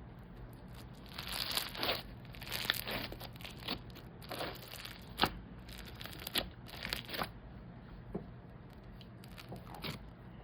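Crunchy bingsu bead slime being squeezed and stretched, giving irregular crackling and crunching pops, busiest in the first seven seconds and sparser near the end.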